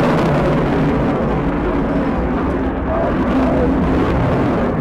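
Jet noise from a Eurofighter Typhoon's twin Eurojet EJ200 engines as the fighter flies by in its display: a loud, steady rush with faint tones that slowly shift in pitch.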